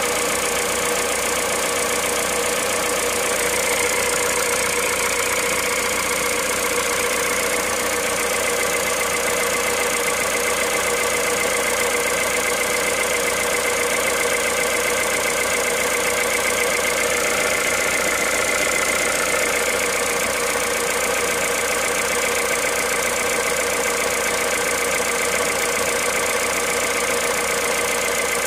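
Car engine idling cold, with a fast, even ticking clatter over a steady whine. This is the cold-engine noise being documented at 65,000 km.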